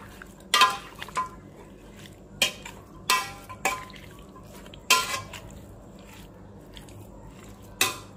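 Steel spoon clinking against the wall of a stainless steel pressure cooker while raw mutton, tomatoes and spices are mixed in it, before the heat is on. About eight sharp metallic clinks, some ringing briefly, come at uneven intervals with soft stirring between.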